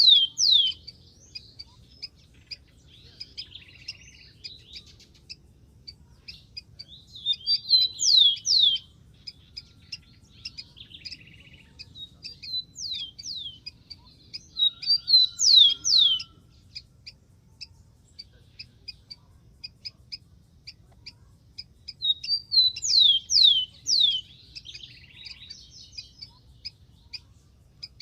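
Rufous-collared sparrow singing: four songs, each a short run of quick downslurred whistles, about seven or eight seconds apart, with faint short chirps between them.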